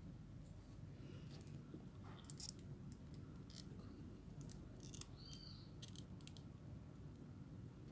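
Plastic joints of a Transformers Masterpiece MP-39 Sunstreaker figure clicking and ratcheting as its parts are folded and swung during transformation: a scatter of faint, short clicks over a low background hush.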